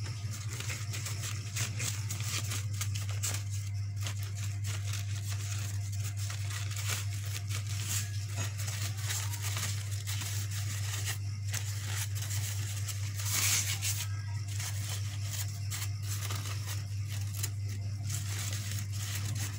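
Crepe paper rustling and crinkling in the hands as it is rolled and shaped, with many small irregular crackles, over a steady low hum.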